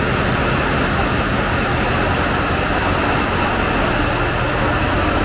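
Caterpillar 3516B V16 twin-turbo marine diesel engines running, a loud, steady drone filling the engine room.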